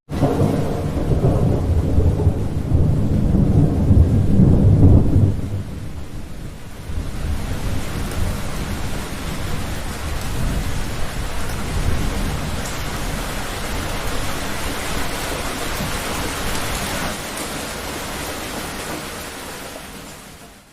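A deep rumble of thunder rolling for about five seconds, then heavy rain hissing steadily, fading out at the end.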